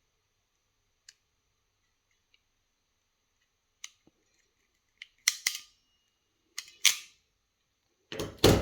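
Ratchet of a Preciva DEM49XN hexagonal wire-ferrule crimping tool clicking as the handles are squeezed to crimp a 0.5 mm² ferrule. A few faint clicks are followed by three loud, sharp clacks, and the last and loudest near the end comes with a low thud.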